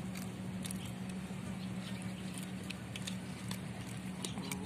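Cats chewing and crunching food scraps, with scattered small clicks, over a steady low hum.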